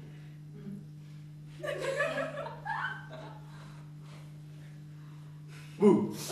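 Audience chuckling in scattered bits, then breaking into louder laughter near the end, over a steady low electrical hum.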